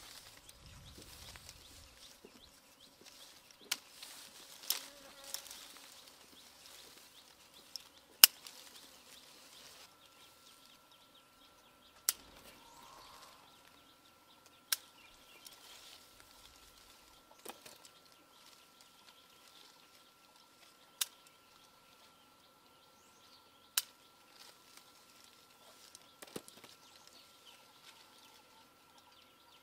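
Sharp single clicks every two to three seconds as green citrus fruits are picked off the tree by their stems, over a faint outdoor background with a faint steady high tone starting about a third of the way in.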